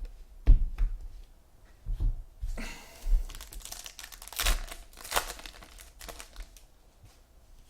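Trading card pack wrappers being torn open and crinkled by hand, with a few low thumps of handling, the sharpest about half a second in.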